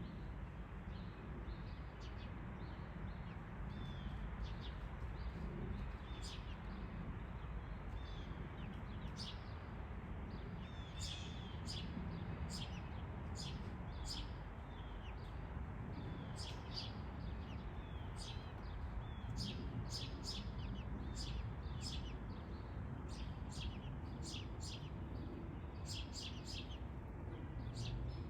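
Sparrow chirping in short, sharp, repeated chirps, sparse at first and then coming about one or two a second from around ten seconds in, over a steady low background noise.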